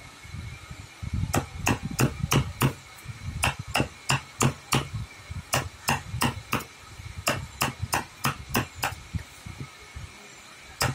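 Repeated hammering: sharp blows about three a second, in runs of four to six strikes separated by short pauses, with one last blow near the end.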